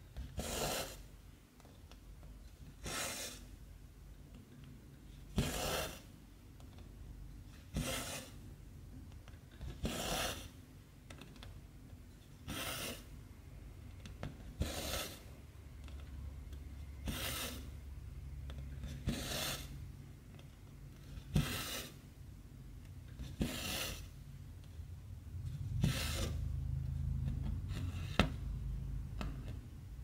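Cotton embroidery thread being drawn through 14-count cross-stitch fabric: a short rasping pull roughly every two seconds, about a dozen times, in a steady stitching rhythm.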